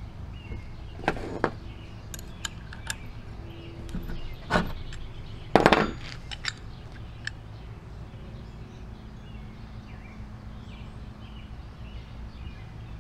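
Steel handle parts clinking and knocking as they are handled and set down on a plywood workbench: a string of sharp clicks over the first seven seconds, the loudest knock a little before the middle. After that only a low steady hum remains.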